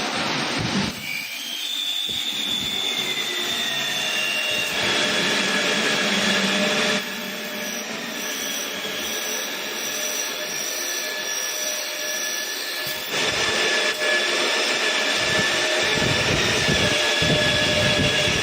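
Vitrex 022 automatic glass drilling machine running: a steady electric motor whine carrying several high tones, which shift in level and pitch a few times.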